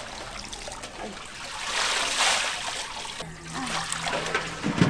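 Water sloshing and splashing as gloved hands rub and wash a colander of live loaches in a basin, then muddy water trickling and pouring out of the lifted plastic colander into a steel basin. One loud knock comes just before the end.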